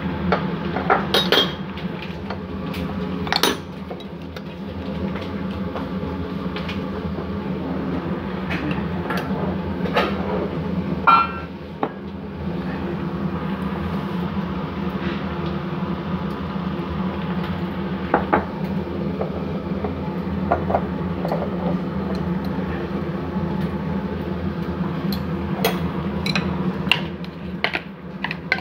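Scattered knocks and clinks of a plastic mixing bowl and kitchen utensils being handled while raw chicken wings are tossed in seasoning powder, over a steady low hum.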